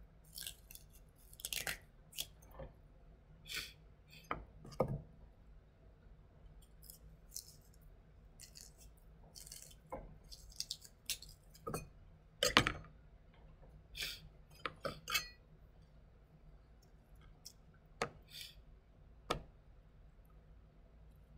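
Paring knife peeling a chayote by hand: irregular short scrapes of the blade through the skin, with scattered light clicks and knocks.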